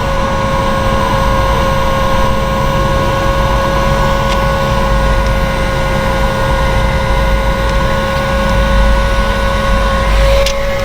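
Heat gun running steadily, its fan motor giving an even whine over the rush of blown air.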